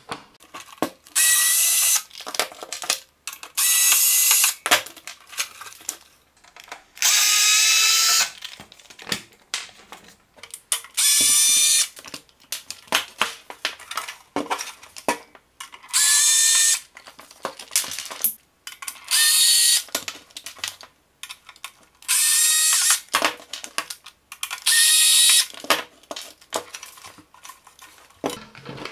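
A power screwdriver backing screws out of an inverter welder's case: eight short runs of motor whine, each about a second long and a few seconds apart, with small clicks and rattles of handling between them.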